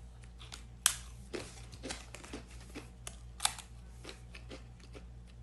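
Scattered light clicks and soft crackles, two sharper clicks standing out, over a low steady hum.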